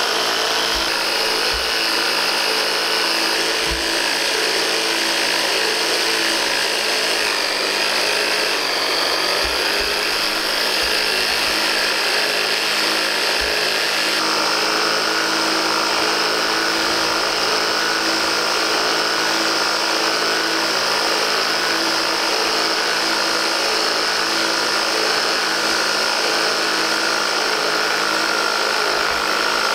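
Electric motor and gearbox driving a 3D-printed two-stage water jet pump, running steadily with a whine over a rushing wash of noise; the pitch dips briefly about eight seconds in and then recovers.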